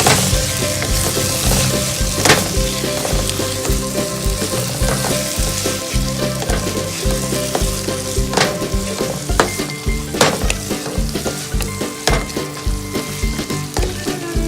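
Onion, tomato and ground herb paste frying in oil in a pan with a steady sizzle while being stirred, the spoon knocking sharply against the pan a few times.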